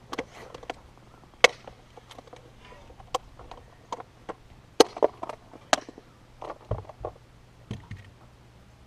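Irregular sharp knocks and clacks of things being handled on a bass boat, about a dozen hard hits at uneven intervals, with a couple of duller thumps near the end.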